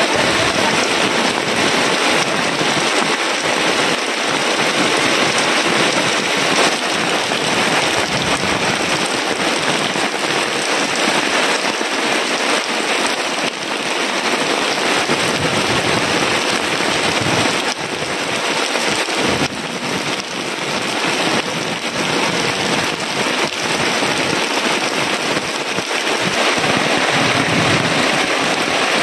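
Heavy rain falling steadily and without a break, with water streaming off the edge of a thatched shelter roof.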